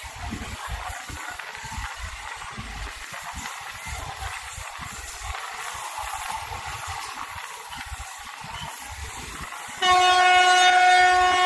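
Indian Railways train running with a rough, uneven rumble. Near the end comes a loud, steady-pitched horn blast from the WAP-4 electric locomotive, lasting about two seconds.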